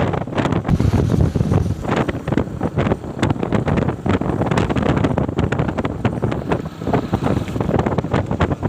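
Wind buffeting the microphone of a moving motorcycle, gusting irregularly over steady road and engine noise.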